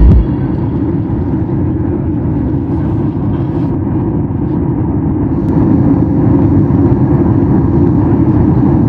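Steady engine and air noise inside a passenger jet airliner's cabin, a dense low rumble. A brief low thump at the very start, and the noise grows a little louder about five and a half seconds in.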